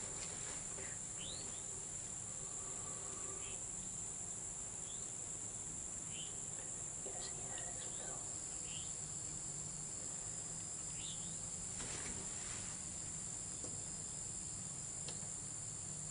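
Steady high-pitched drone of a summer insect chorus, with a few short rising chirps scattered through it.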